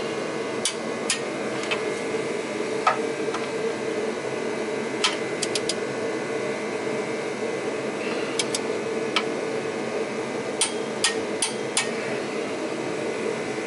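Scattered light metallic clinks of a socket and hand tools on the flywheel bolts, some in quick clusters of two or three. Under them is the steady running hum of a shop heater.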